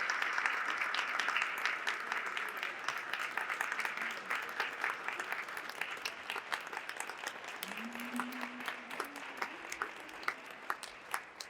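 Audience applauding in a large chamber, dense at first and dying away to scattered separate claps.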